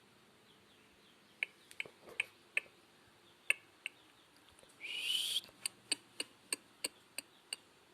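Irregular sharp ticks, a few a second, and about five seconds in a brief, louder rising call from a chicken.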